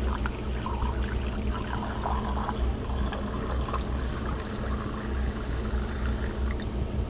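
Deionized water running from a lab water line into a beaker, flushing the ethanol off a filtration membrane; a steady flow with a low hum underneath.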